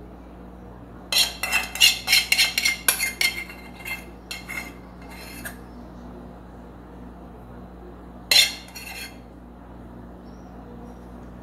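A spoon clinking and scraping against a dish while chocolate is spooned out: a quick run of clinks for several seconds, then a shorter cluster about eight seconds in.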